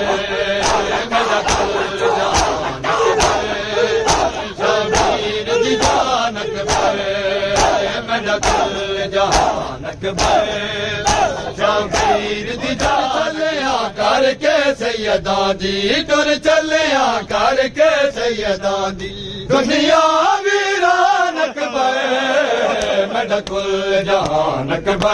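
Men's voices chanting a noha in unison on a wavering melody, over a steady beat of hand slaps, chest-beating matam keeping time. About twenty seconds in, the slaps stop briefly while the voices hold a long wavering note.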